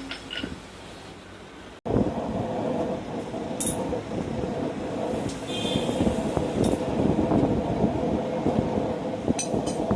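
A steady roar of a forge, starting abruptly about two seconds in, with a few sharp metallic clinks of steel and tongs over it.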